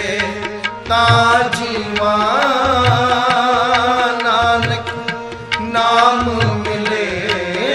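Background music: Sikh devotional kirtan, a melody over a steady drone with tabla keeping a regular beat.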